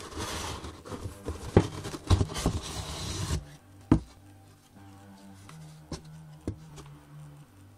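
Plastic bags of kit parts rustling and crinkling under handling hands for the first three and a half seconds, then a few wooden knocks from the MDF frame panel being moved, the sharpest about four seconds in. A low steady hum sits underneath.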